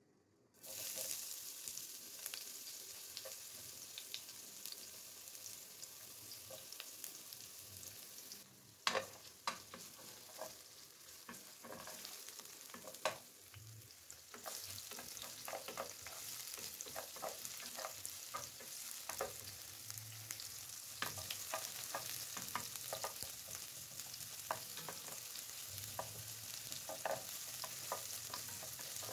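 Sliced red onions frying in hot oil in a nonstick wok, a steady sizzle that grows louder about halfway through. A sharp knock comes about nine seconds in, and a wooden spatula clicks and scrapes against the pan as the onions are stirred.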